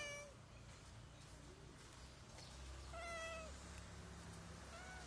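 A hungry stray cat meowing for food: the tail of one meow at the start, another meow about three seconds in, and a short one near the end.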